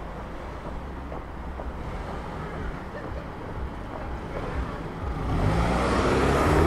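A Jaguar saloon car driving slowly past close by, its engine and tyres on the wet road swelling loudly about five seconds in as it passes.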